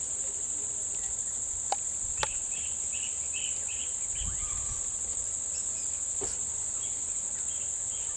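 Steady high-pitched drone of an insect chorus, with two sharp clicks about two seconds in and a few faint short chirps.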